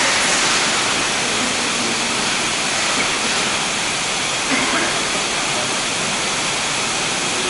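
Road-tunnel water-spray fire-suppression system discharging: a steady hissing rush of water mist from the ceiling nozzles.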